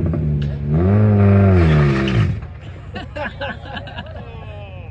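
Chevrolet Cruze's engine revved hard once while standing still, its pitch rising and falling back over about a second and a half before the revs drop away, leaving crowd chatter.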